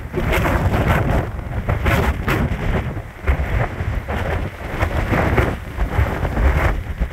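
Storm-force wind buffeting the microphone in uneven gusts, a heavy low rumble, with crashing sea waves mixed in.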